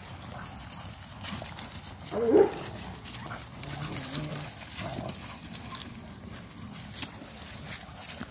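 Rottweiler puppies growling as they tug at a bite sleeve, with one loud short bark about two seconds in, and scuffling and rustling around them.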